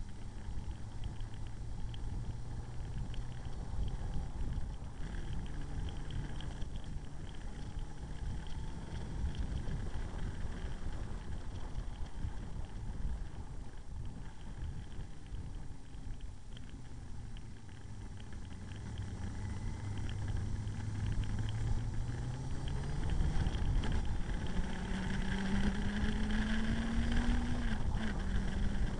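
Motorcycle engine running at speed with wind and road noise. About two-thirds of the way in it accelerates, its pitch rising steadily, then drops near the end.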